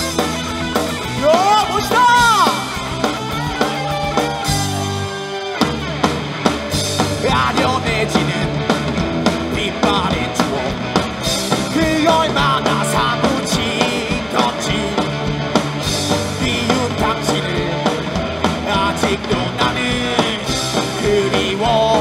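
Live rock band playing: electric guitars, bass guitar and drum kit, with a singer's voice over the band.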